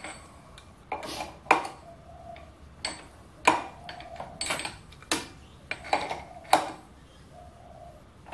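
A hand tap being worked into tough chrome-moly steel: irregular sharp metallic clicks and clinks, about a dozen, as the tap and its wrench are turned and eased back.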